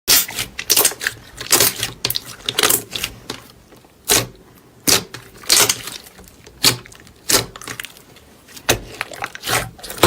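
Slime being squeezed and pressed by hand, giving a string of crackling pops at irregular intervals, about a dozen in all.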